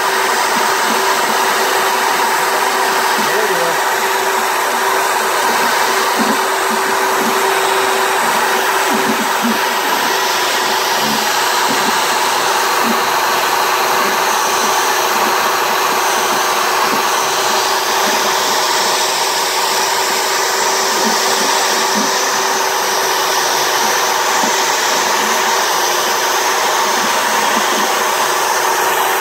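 A CNC router's spindle running steadily with its bit engraving a wooden board: a constant whine over a steady rushing noise.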